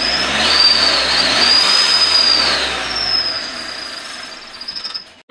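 Car exhaust fitted with an aluminium turbo whistle tip: a high whistle that rises and falls over the rush of the exhaust, fading in the last couple of seconds and cutting off abruptly just before the end.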